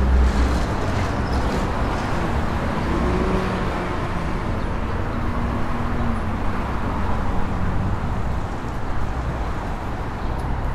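City street traffic ambience: a steady wash of passing cars and idling engines with a deep rumble underneath.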